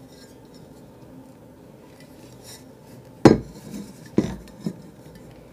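Pots being handled, knocking against each other or a surface: one sharp knock about three seconds in, then two lighter knocks.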